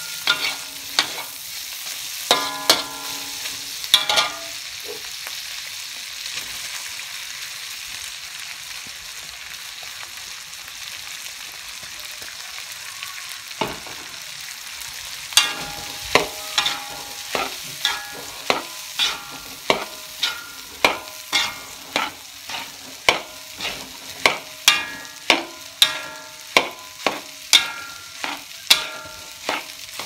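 Metal spatula striking and scraping a steel wok, each clang ringing, over the steady sizzle of nasi goreng frying. A few clangs at the start give way to sizzling alone; a dull thump about halfway through marks the cooked rice going into the wok. Regular clangs follow, about three every two seconds, as the rice is tossed and stir-fried.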